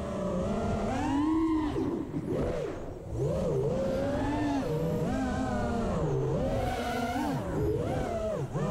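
A 5-inch FPV racing quadcopter's brushless motors (Hurricane 2207 2500kv on Gemfan Flash 5152 props) whine in flight. The pitch keeps rising and falling with the throttle through the turns, and drops away briefly about three seconds in before picking back up.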